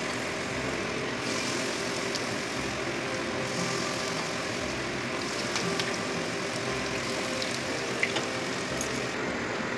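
Hot oil sizzling steadily in a kadai as cabbage-and-carrot fritters deep-fry, with a few faint clicks.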